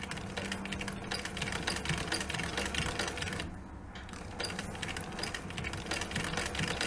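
Singer 111W152 walking-foot, triple compound feed industrial sewing machine stitching leather: a fast clatter of needle strokes over a steady motor hum. It pauses briefly about three and a half seconds in, then sews on.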